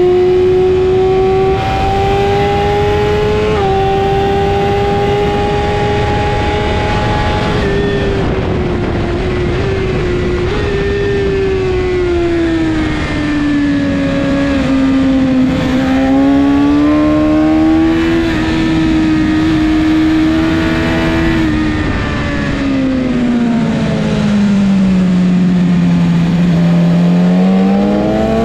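BMW S1000RR superbike's inline-four engine heard from the rider's seat, with heavy wind rush. The engine holds high revs at full throttle for the first several seconds, drops in pitch as the bike brakes for a corner, then pulls and holds again. It falls to its lowest note in a second, slower corner and climbs sharply as the throttle opens near the end.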